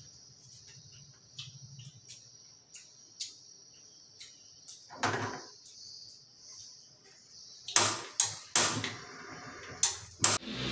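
Scattered knocks and clatter as cookware is handled at a portable gas stove, with a cluster of sharp knocks near the end as the stove's knob is worked. A steady high-pitched hiss runs under it.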